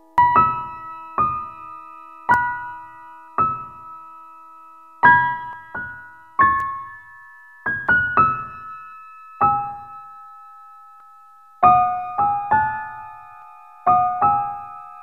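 Outro music on piano: a slow melody of single struck notes and quick two-note pairs, each ringing out and fading before the next.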